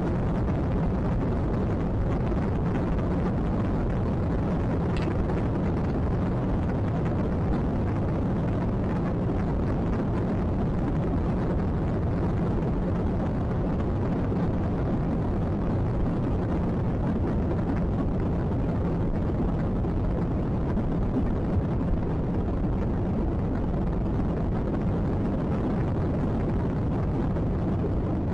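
Steady cabin noise of an Airbus A320-family airliner on the runway, heard by the window: jet engine and rumble from the wheels with a constant hiss, neither rising nor falling.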